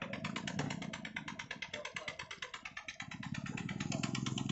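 Fishing boat's engine chugging steadily, about eight or nine beats a second, growing louder in the last second and a half.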